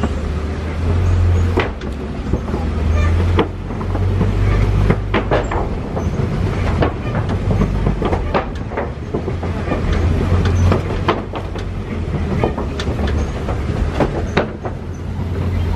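Open-sided safari truck driving along a rough track: its engine runs as a steady low drone, with frequent irregular rattles and knocks from the vehicle as it bumps along.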